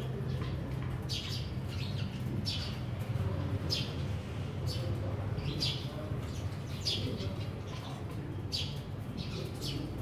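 Sparrows chirping: short, high chirps repeated at irregular intervals, about one a second, over a steady low hum.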